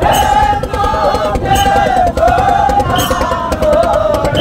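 A voice singing long, wavering melodic lines with musical backing, a sharp percussive hit falling about every second and a half.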